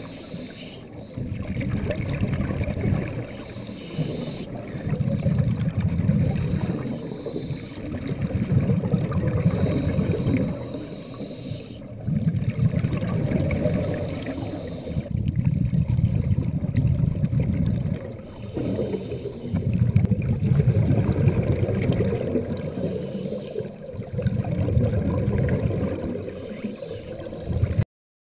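A scuba diver breathing through a regulator, heard underwater through the camera housing: a muffled, gurgling rush of exhaled bubbles swells about every three to four seconds, with quieter gaps between. The sound cuts off abruptly near the end.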